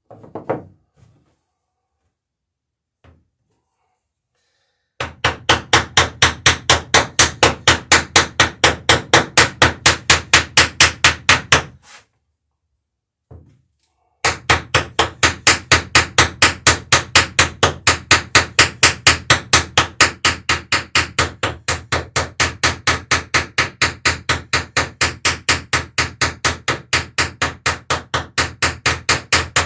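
Small hammer rapidly peening copper rivets over their roves on a dory's lapstrake planking. It strikes about five even blows a second in two long runs, with a pause of a couple of seconds between, after a few scattered knocks.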